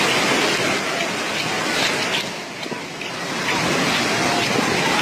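Floodwater of a swollen river rushing in a steady, dense wash of noise that dips briefly about halfway through.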